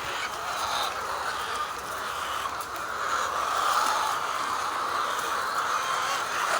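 Dense, continuous chorus of poultry calling together, a steady crowd of bird voices.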